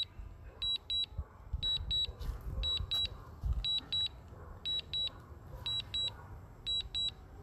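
A drone's low-battery alarm beeping: pairs of short, high electronic beeps repeating about once a second, over a low rumble.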